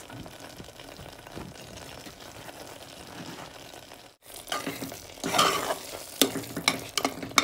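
Sweet pongal of rice and moong dal sizzling in ghee and sugar syrup in a pot while a spoon stirs it. After a momentary break about four seconds in, the stirring gets louder, with scraping and several sharp knocks of the spoon against the pot near the end.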